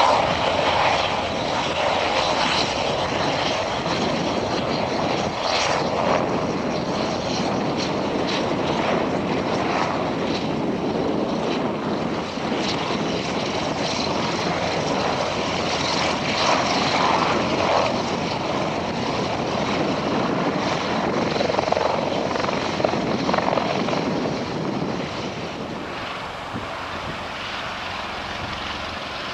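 Eurocopter EC225 Super Puma helicopter hovering low, its rotor and turbines making a steady, loud noise that swells and eases slightly and drops off a little near the end.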